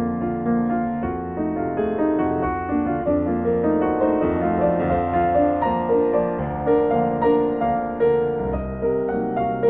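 Piano music: a steady run of struck notes and chords, each note starting sharply and fading.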